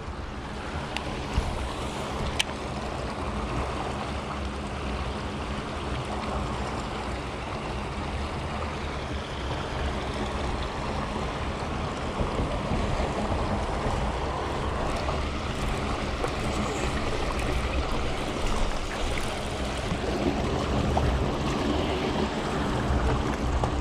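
Steady rushing of water flowing between the concrete blocks of a small dam, an even noise without rhythm.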